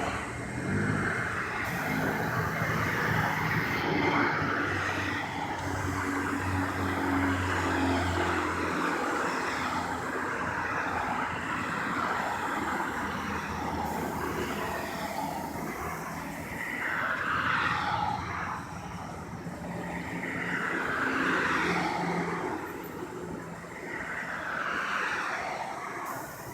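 Gas-station air compressor running while air is pumped through the hose into a car tire that has been repaired with a plug. A steady low hum stops about eight seconds in, and a steady rushing noise swells and fades throughout.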